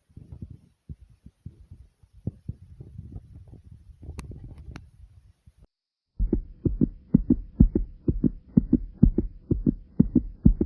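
A fast human heartbeat picked up close to the chest. At first there are fainter, uneven muffled thumps. After a brief dropout about halfway through, a loud, steady racing beat of roughly two thumps a second takes over.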